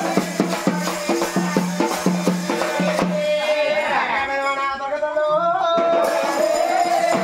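Festival dance music: a fast, even beat of drums and rattles over a steady low note, giving way about three seconds in to a held melody line with small bends in pitch.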